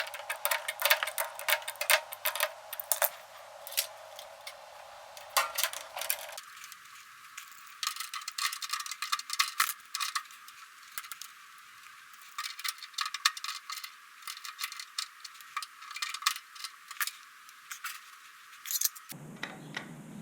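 Quick metallic clicks, clinks and rattles in uneven clusters: hand tools and metal fittings being handled while a garbage disposal is removed and installed.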